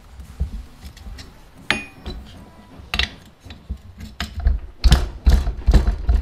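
Metal clinks and knocks from the head and cylinder of a small motorized-bicycle engine being unbolted with a tube spanner and worked loose by hand: irregular taps, one ringing briefly, with a run of louder knocks in the second half.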